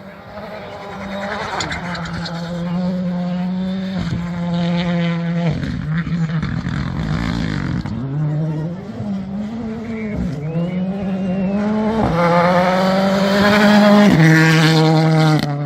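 Rally car at full attack, its engine revving hard and climbing through several quick gear changes. It falls back to lower, rougher revs for a few seconds, then pulls hard again and grows loudest near the end before the sound cuts off abruptly.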